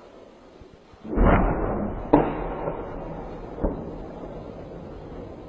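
An explosion about a second in: a sudden boom with a low rumble that dies away over a few seconds, followed by two sharp cracks.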